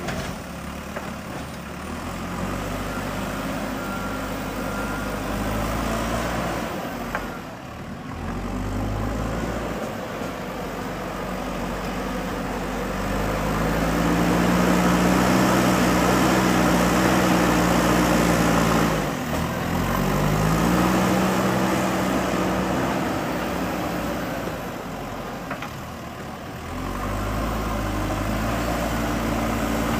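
JCB 3DX backhoe loader's diesel engine running under working load, its revs rising and falling as the machine digs and loads mud. The engine revs up loudest about halfway through, drops back sharply, then climbs again.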